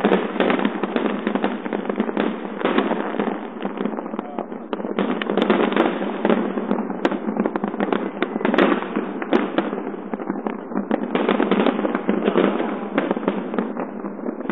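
A dense fireworks barrage: many aerial shells bursting and crackling in rapid, overlapping succession with no pause, heard through a phone's microphone, thin and with little bass.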